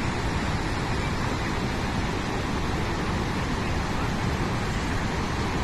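Steady rushing of a large waterfall and river water pouring over the falls, an even, unbroken wash of noise.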